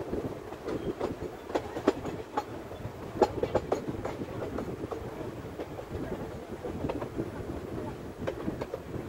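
Passenger coach running along the track: a steady rumble of wheels on rails with irregular clicks and knocks, the sharpest about three seconds in.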